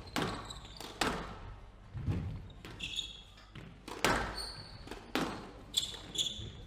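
Squash rally: the ball cracks sharply off rackets and the court walls about once a second, echoing in the hall, with short high squeaks between the hits that fit players' shoes on the wooden court floor.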